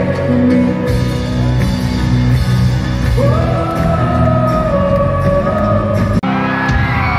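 Live folk-rock band playing with a voice singing. The music cuts abruptly to another passage about six seconds in.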